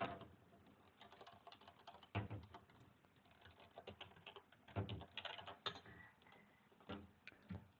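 Faint computer keyboard typing: irregular keystrokes in short runs, entering a username and password at a login screen.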